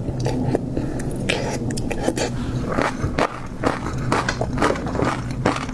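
Close-miked eating of seafood: biting and chewing with a dense run of crisp, wet clicks and crackles.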